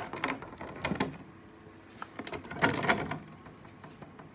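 Handling noise from a metal loaf tin knocking and scraping against a wooden box: a sharp knock at the start, another about a second in, then a longer clatter and scrape near three seconds.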